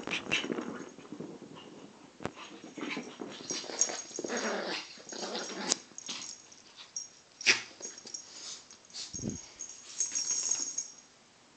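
Teacup Yorkshire terrier puppy making play-fight noises in irregular bursts while wrestling a Bengal kitten, with paws scuffling on the carpet. The noises die away about a second before the end.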